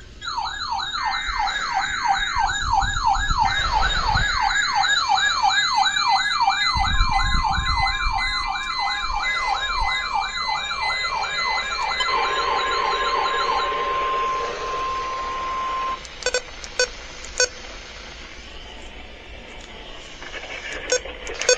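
Electronic siren tone wailing fast, its pitch swinging up and down about three times a second, with a steady high beep-like tone joining partway through. The wail stops about 14 seconds in and the steady tone a little after, leaving a few clicks over a low hiss.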